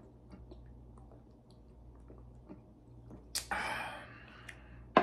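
A person drinking sparkling water from a glass bottle: faint swallows and mouth clicks, then a breathy "ahh" exhale a little over three seconds in, and a sharp click near the end.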